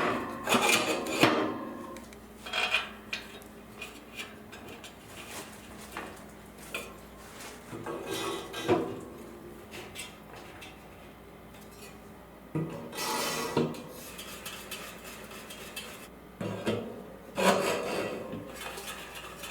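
Steel bars and bolts clinking and scraping as they are handled and fitted into a steel furniture frame, in irregular clusters of clatter with quieter stretches between.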